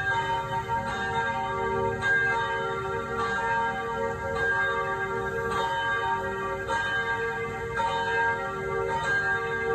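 Church bells ringing, struck about once a second, each stroke's tones ringing on under the next.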